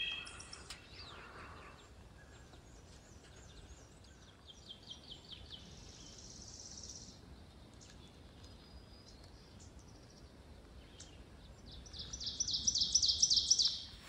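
Woodland songbirds singing: several short series of rapid high chirps and a buzzy trill over faint background hiss, with a louder fast run of repeated high notes near the end.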